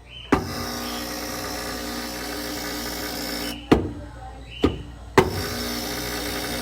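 Loud, steady electrical buzz from the board of a Brastemp BRF36G refrigerator, a sign of the faulty board behind the over-freezing that replacing the board cured. It breaks off for about a second and a half in the middle and starts again, with sharp clicks where it stops and starts.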